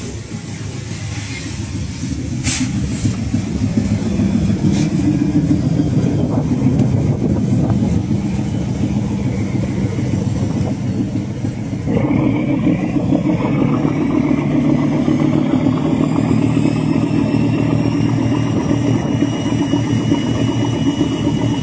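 Fishing boat's engine running steadily under way, with water rushing along the hull; the engine gets louder a few seconds in and fuller about halfway through.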